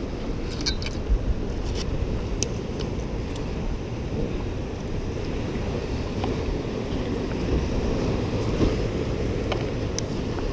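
Wind buffeting the microphone over surf washing against the jetty rocks, a steady low rush, with a few light clicks.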